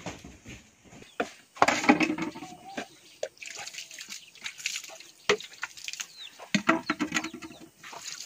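Water poured from a plastic mug splashing and trickling onto plastic plates, with irregular knocks and clatter as the plates and mug are handled.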